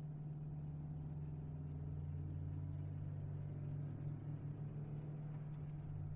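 Low, steady synthesizer drone holding two deep tones, the quiet instrumental opening of a dark pop song, fading up from silence.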